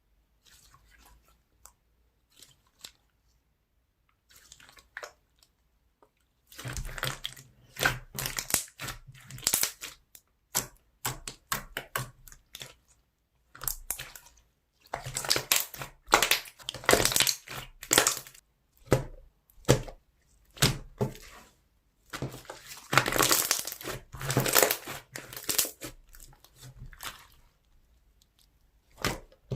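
Slime being squeezed and pressed by hand, giving crackling, clicking popping sounds. A few faint clicks come first, then bursts of crackle start about six seconds in and come and go.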